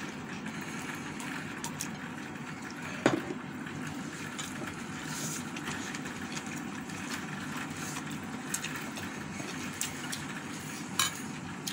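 Steady, even background noise like a running fan or room machine, broken by a few sharp clicks, the loudest about three seconds in and another near the end.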